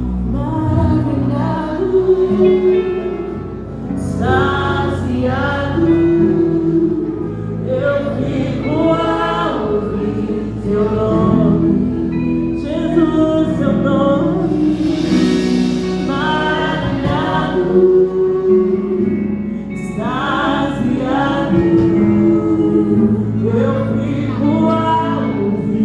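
Congregational worship singing, voices together over a band with bass and sustained chords.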